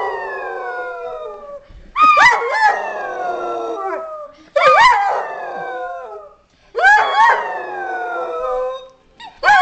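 Large grey dog howling in a run of long howls. One fades out early on, then a new howl starts about every two and a half seconds, each opening with a quick up-and-down yelp and then sliding slowly down in pitch.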